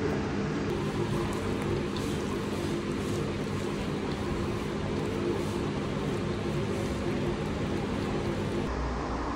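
Steady mechanical hum with several low steady tones over a noisy hiss. Near the end it changes abruptly to a deeper drone.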